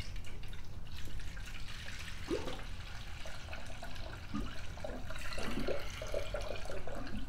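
Tap water pouring from a plastic bucket into a funnel on a car radiator, splashing steadily, with gurgles from about two seconds in as the cooling system fills with water for a flush.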